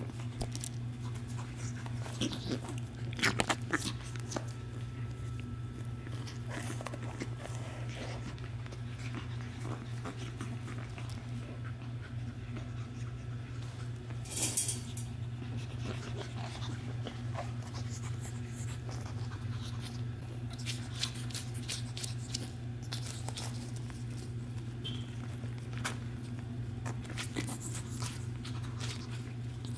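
Shih Tzu puppies playing, with scattered small clicks and noises over a steady low hum. There is a cluster of sharper sounds a few seconds in and a single louder one about fourteen seconds in.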